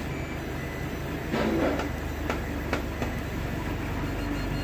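FDM 3D printer running a print: its stepper motors hum and whir, the pitch stepping up and down as the head and bed change moves. A short rustle about a second and a half in and a couple of sharp clicks soon after.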